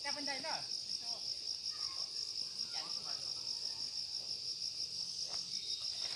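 Insects trilling in the vegetation: a high, steady drone that pulses rapidly without a break.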